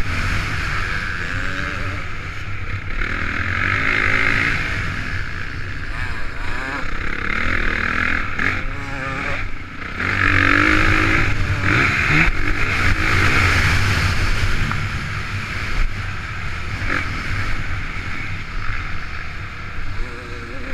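Honda CRF450 single-cylinder four-stroke motocross engine under riding load, heard from a helmet-mounted camera. Its note rises and falls repeatedly as the throttle is opened and shut through the track's jumps and corners.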